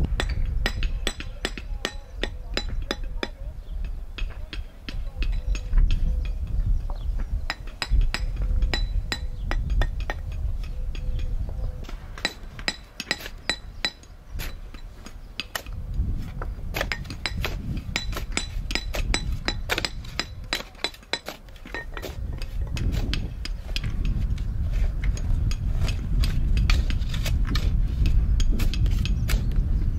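Clay brick pavers clinking and knocking against each other as they are laid and tapped into place with a hammer: many quick, sharp clicks, thickest in the middle, over a low rumble.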